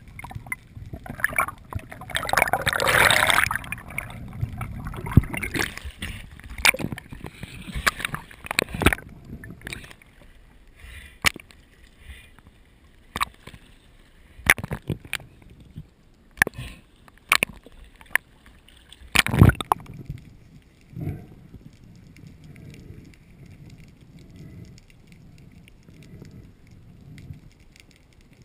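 Water gurgling and sloshing around a GoPro camera in its underwater housing while a spearfisher swims, with a rush of noise about two seconds in, many sharp clicks and knocks, and a loud knock about nineteen seconds in; after that the water noise goes quieter.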